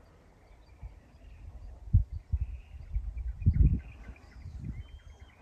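Outdoor dawn ambience: irregular low thumps of wind buffeting the microphone, loudest about two seconds in and again around three and a half seconds, with faint bird chirps in the background.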